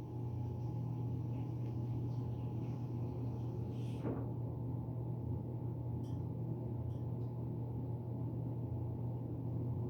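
Steady low hum, with a short falling sweep about four seconds in and a few faint ticks after it.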